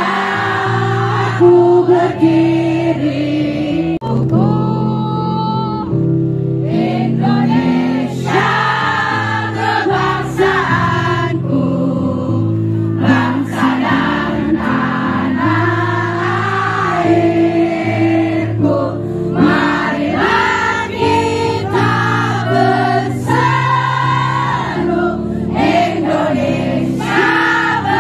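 Live music: a singer over a band backing, with many voices singing along together.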